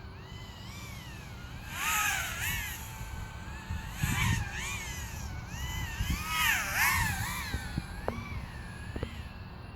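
Five-inch FPV racing quadcopter's Emax RS2205 2300 kV brushless motors and three-blade props whining, the pitch rising and falling repeatedly as the throttle is punched and backed off, loudest in swells about 2, 4 and 7 seconds in.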